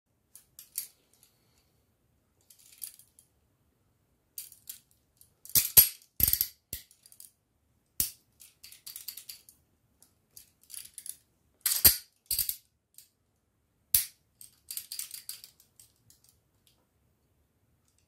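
Chubb Detainer IK70 steel handcuffs clicking and clinking as they are closed onto the wrists and handled: irregular metallic clicks and short rattling clusters. The loudest clusters come about six and twelve seconds in, with a single sharp click at about fourteen seconds.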